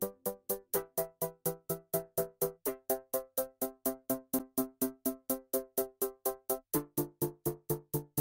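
Electronic background music: a short synthesizer chord repeated about four times a second, each note struck sharply and fading fast, moving to a lower chord about two-thirds of the way through.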